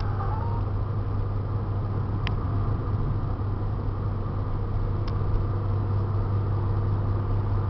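In-cabin sound of an Opel Kadett GT estate cruising at motorway speed: a steady low engine hum over even tyre and road noise, with two faint ticks.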